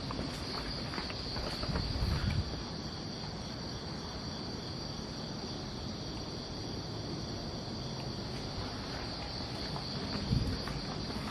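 Crickets trilling in a steady, unbroken high chorus. A few low thuds come about two seconds in and again near the end.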